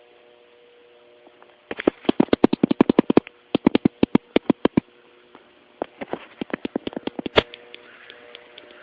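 Airsoft guns firing in rapid bursts of sharp clicks, about eight shots a second, starting about two seconds in, pausing near the middle, then a second run of shots that ends abruptly, recorded through a phone microphone.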